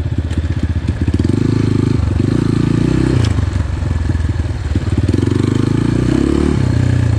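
GPX FSE 250 E dual-sport motorcycle's 250 cc engine running under way, its revs dipping and picking up again several times as the throttle is worked. A single short click sounds about three seconds in.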